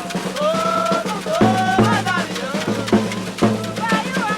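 Maracatu percussion ensemble playing: dense drumming with sharp clicking hits over a steady low tone that comes and goes, and voices singing long, bending notes over it.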